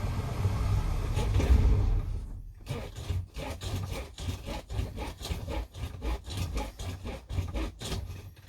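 Old truck engine being cranked on a hard start. After a louder first two seconds, the starter turns it over in a slow, even chug of about three to four strokes a second without the engine catching.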